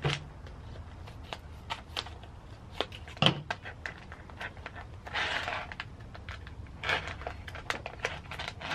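Scissors cutting open a silver foil bag, then the bag crinkling and rustling as it is pulled open by hand. There are many small sharp clicks throughout and a few longer bursts of crinkling.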